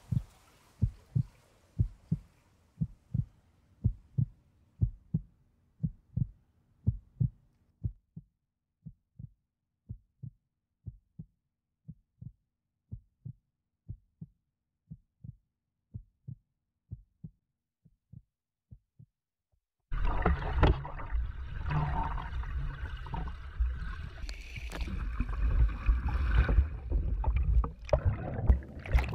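A heartbeat, about two beats a second, fades and stops. Then loud churning water cuts in suddenly, the turbulent rush of water around a swimmer.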